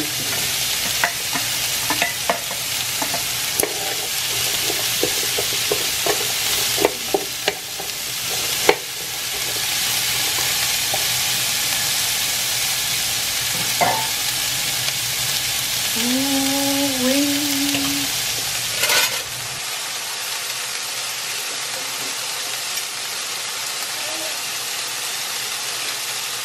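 Diced sausage, onion, bell pepper and celery sizzling in a hot frying pan, with the knocks and scrapes of a spoon stirring in the first several seconds. A short two-step tone sounds about two thirds of the way through, and then the sizzle continues from alligator meat frying in a cast-iron pot.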